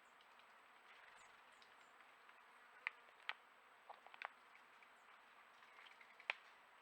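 Quiet outdoor nature ambience: a faint steady hiss broken by a few short, sharp chirps or clicks, the loudest about three seconds in and again near the end, with a few very faint high peeps.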